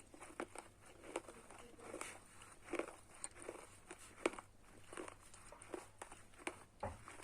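Mouth crunching and chewing hard, brittle pieces of slate pencil or earthen lamp, close to the microphone. Sharp, irregular cracks come a few times a second, with a louder crack about four seconds in.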